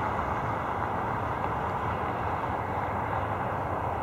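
Boeing 737-700's CFM56-7B jet engines at takeoff thrust during the takeoff roll, heard from a distance as a steady, unchanging rush of jet noise.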